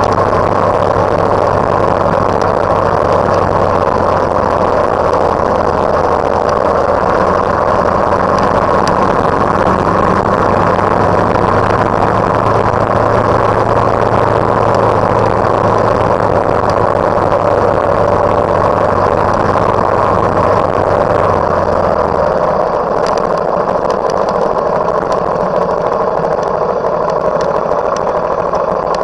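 Steady running noise from the recording vehicle on the move: engine drone with road and wind rumble. The low engine hum drops away a little over twenty seconds in as the vehicle slows for a red light.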